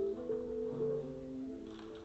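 Background music: held notes with a melody moving over them.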